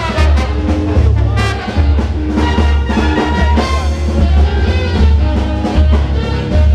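Frevo orchestra playing live: a brass section of trumpets and trombones with drums, over a heavy low boom.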